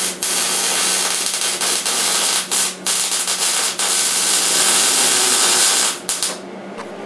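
MIG welding with a Hobart Handler 120 wire-feed welder: a steady crackling hiss from the arc, broken by a few short pauses, that stops about six seconds in.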